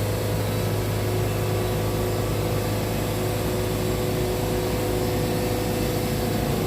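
Wood-Mizer band sawmill's engine running steadily at an even pitch while the band blade saws slabs off a pine log.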